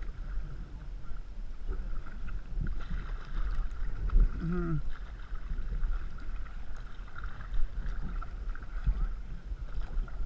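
A canoe being paddled, with soft paddle knocks and water sounds, and a steady low wind rumble on the microphone. A brief vocal sound comes about four seconds in.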